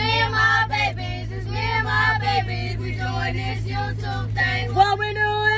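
Music with a high singing voice, phrases of melody and held notes, over a steady low hum.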